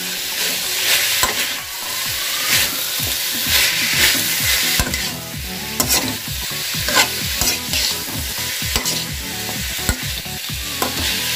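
Vegetables sizzling in a hot metal kadhai over a high gas flame, stirred and tossed with a metal spatula that scrapes and clinks against the pan again and again at an irregular pace.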